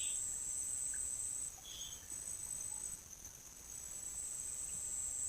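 Insects trilling in the forest: a steady, high-pitched buzz that breaks off briefly about a second and a half in and again around three seconds, over a continuous lower insect hum.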